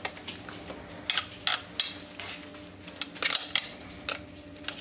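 Metal wing nuts and strap clamps being turned and fastened on a filter tank's stainless-steel trolley: a scatter of short, sharp metallic clicks and clinks at irregular intervals.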